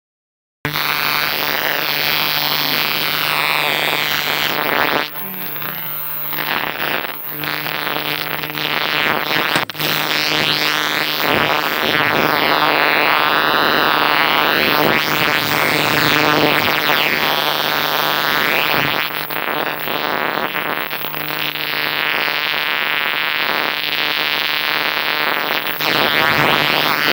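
Green long-horned grasshopper (katydid) stridulating: a loud, continuous harsh buzz that dips briefly a few seconds in and cuts off suddenly at the end.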